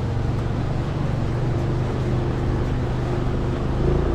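Motorbike engine running under load on a steep, rough uphill track, with wind and road noise on the microphone. The engine note changes near the end.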